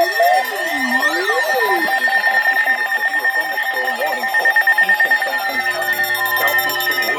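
Emergency Alert System warning tones. An electronic tone sweeping up and down ends about two seconds in, then a rapid, evenly pulsing beep carries on over a steady higher tone. It is the alert for a severe thunderstorm warning.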